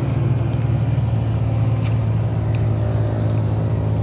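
Steady low hum of an engine or motor running, with a couple of faint ticks.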